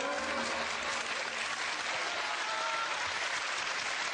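Studio audience applauding, with a few voices calling out over the clapping near the start.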